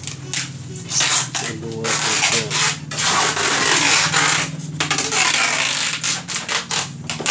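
Plastic wrap and styrofoam boxes rustling and rubbing as they are handled, in a run of noisy scrapes of about a second each.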